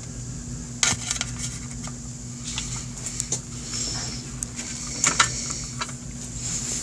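Light metallic clinks and rattles of a timing chain and hand tools knocking against a Honda Rebel engine's open aluminium crankcase during crankshaft installation, in irregular bunches with the sharpest knocks about a second in and about five seconds in. A steady low hum runs underneath.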